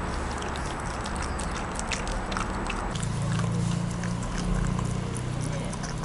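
A dog eating fried egg from a glass bowl: quick, wet chewing and licking with many small clicks of tongue and teeth. A low steady hum joins about halfway through.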